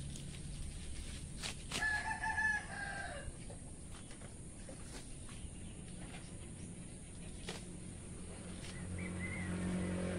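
A rooster crowing once, about two seconds in, a call of a second and a half that drops at its end.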